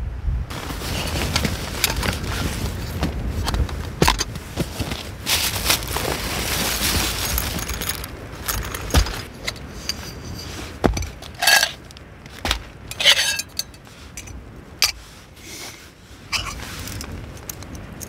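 Titanium mug, lid and folding gas-stove parts being handled: metal clinks and scrapes. Dense rustling and rattling fill the first half, and two short ringing clinks come near the middle.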